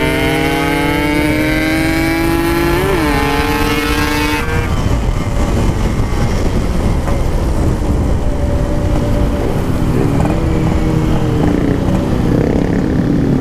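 Yamaha RX-King two-stroke single-cylinder motorcycle engine pulling hard under acceleration, its pitch climbing steadily for about four seconds. Then the throttle comes off sharply and the engine runs lower and uneven, with wind rumble underneath.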